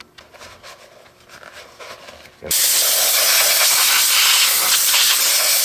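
Spray can hissing in one continuous spray of about three seconds, starting suddenly about two and a half seconds in and cutting off sharply, as the compartment of an RC hydraulic excavator is washed out. Before it come faint handling sounds.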